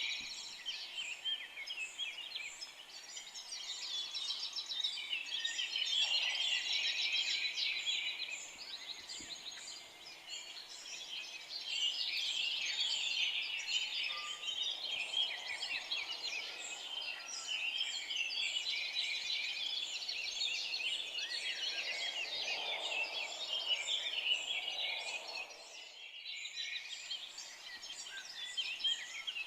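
Many forest songbirds singing and chirping at once, a dense, continuous chorus of short high notes with softer, lower calls now and then. The chorus thins briefly near the end.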